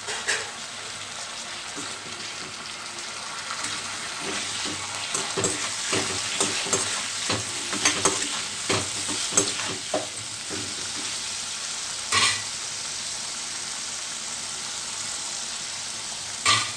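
Drumstick pieces frying in hot oil with onions in a kadai, sizzling steadily, while a metal ladle stirs and scrapes against the pan in a run of clicks. Two sharper knocks come later.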